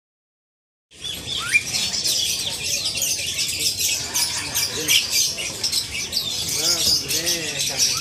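Many caged songbirds chirping and trilling all at once, a dense chatter of overlapping calls that starts about a second in.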